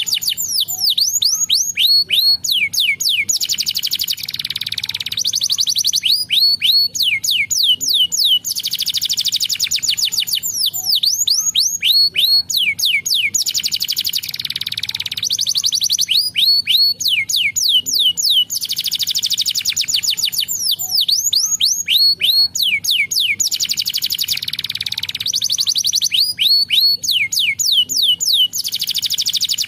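Domestic canary singing continuously: long runs of very fast, high trills alternate with runs of quick downward-sliding whistled notes, the pattern coming round every few seconds.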